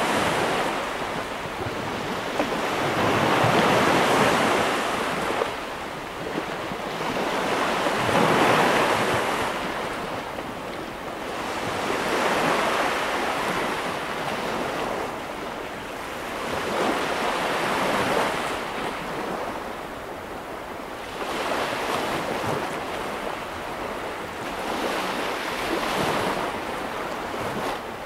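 Sea waves breaking and washing up onto a sandy beach. The surf swells and falls back roughly every four seconds.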